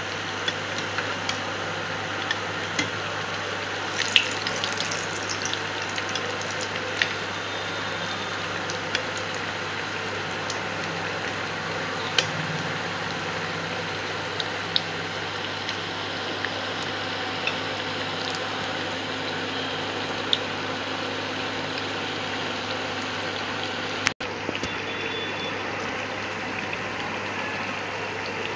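Raw-banana koftas deep-frying in hot oil: a steady sizzle with scattered small pops and crackles.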